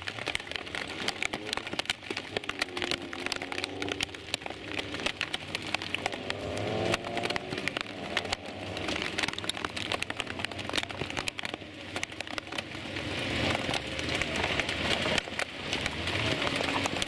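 Heavy rain with a dense crackle of drops striking close by, over GT race cars driving slowly past on a soaked track, their engine notes rising and falling. A hiss of tyre spray and rain swells near the end.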